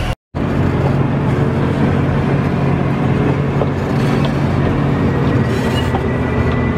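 Oigawa Railway Ikawa Line train running, a steady rumble and hum of wheels and running gear heard from the coupler between the cars, after a brief dropout just after the start.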